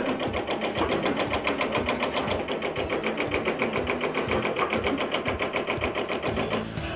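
Stationary sheet-metal forming machine working a panel, its tooling striking in rapid, even strokes, about six a second; it stops shortly before the end.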